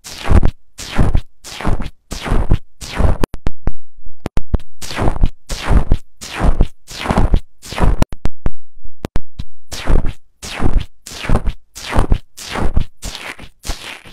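A stick poked again and again into bubbly foam slime in a plastic bowl, each poke a short crackling squish, about two a second, with a brief pause a little past halfway.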